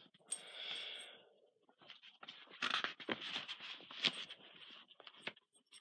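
Pet dog sniffing and snorting close to the microphone, with scuffing and clicking noises around it.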